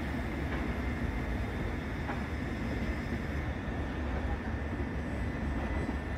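A Southern Class 377 electric multiple unit runs slowly into the platform. It makes a steady low rumble with a thin, steady high whine over it.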